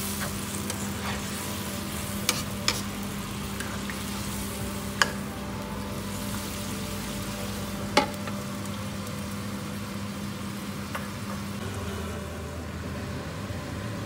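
Curry simmering and sizzling in a nonstick wok, with a spoon stirring and tapping against the pan a few times. About eight seconds in, a glass lid is set on the pan with a sharp clack, the loudest sound.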